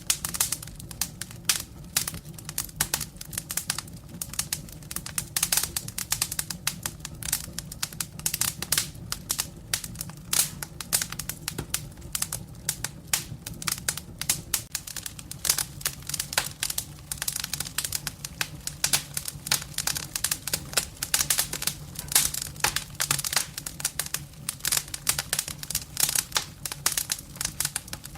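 Wood fire burning in a fireplace, with dense, irregular crackling and popping of the burning logs over a low steady rumble of the flames.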